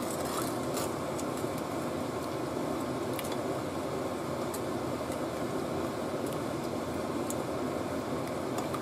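Steady whirring fan noise, with a few faint light clicks as a plastic spoon stirs glutinous rice in coconut milk and sugar in a pot.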